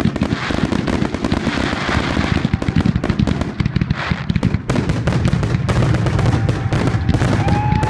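Consumer fireworks finale: a dense, rapid, continuous volley of cracks and booms from aerial shells and rising comets over a steady low rumble, with a crackling hiss in the first couple of seconds and a short whistle near the end.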